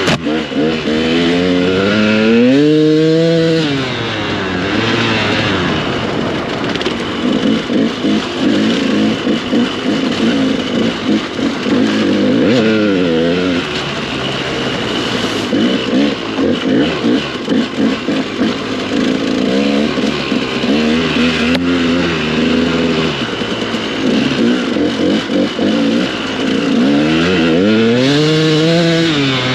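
Dirt bike engine under way on a rocky climb, the throttle worked on and off so the revs rise and fall constantly. It makes longer surges of revs about three seconds in, around the middle, about twenty seconds in and near the end.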